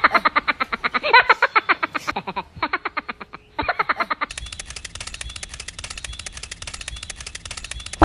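Cartoon sound effects for a small animated toy character: a rapid, high-pitched, sped-up chattering voice. From about four seconds in, a fast, even run of clicks takes over.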